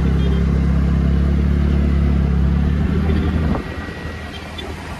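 TVS NTORQ 125 scooter's single-cylinder engine running steadily as the scooter rides at low speed. A short click comes about three and a half seconds in, and the sound then drops noticeably quieter.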